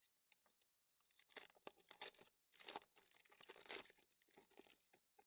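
Faint crinkling and tearing of a foil trading-card pack wrapper as it is pulled open by hand.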